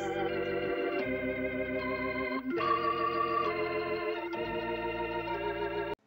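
Soap-opera style organ music: a slow run of held organ chords, changing chord three times, that cuts off suddenly near the end.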